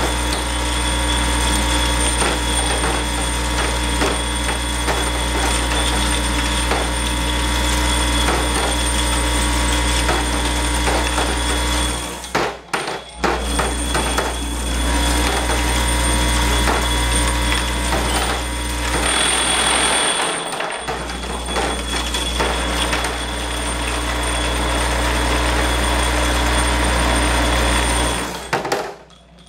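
Vibratory parts feeder running with a steady electric hum, small metal rods rattling and clicking as they shuffle across its vibrating tray. The hum cuts out briefly twice, about halfway through and again near the end, and a short hiss sounds a little past two-thirds of the way in.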